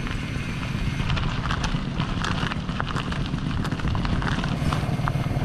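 Mountain bike rolling over a rough off-road dirt track: a steady rumble with frequent irregular rattles and knocks.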